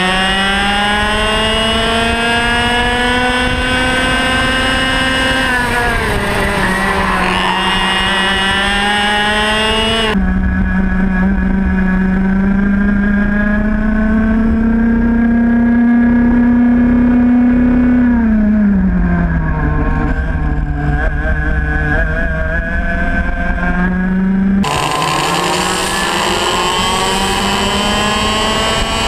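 Racing kart's two-stroke engine heard onboard at close range, its pitch climbing under acceleration and dropping as the driver lifts off for corners, several times over. The sound jumps abruptly twice where one onboard clip cuts to the next.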